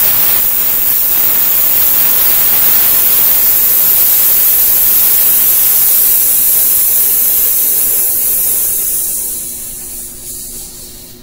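A man breathing out in one long, steady hiss, a sustained "sss" as the exhale of a paced breath-control exercise, fading away about nine to ten seconds in.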